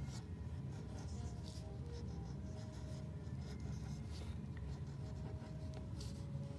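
Fine-tip marker pen scratching across paper in short, irregular strokes while cursive letters are written, over a steady low hum.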